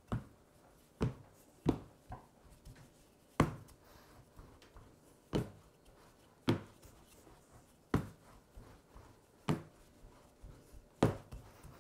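Wooden rolling pin being worked back and forth over sheets of puff pastry on a kitchen worktop, with about ten short, sharp knocks, one every second or two.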